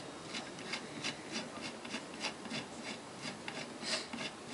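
Repeated short metallic scrapes, about three a second, as the axle of a Sturmey-Archer three-speed hub clamped in a vise is twisted back and forth by hand, its threaded parts grating as they turn.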